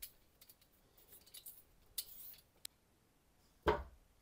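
Vegetable peeler scraping the skin off a raw potato in a few short strokes. Near the end comes one loud thud and splash as the peeled potato is dropped into a metal pan of water.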